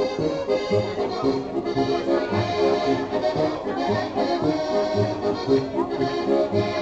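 Accordion playing traditional folk dance music, with a steady bass beat.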